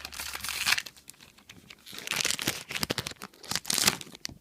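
A foil Magic: The Gathering booster pack wrapper being torn open and crinkled by hand, in three bursts of crinkling.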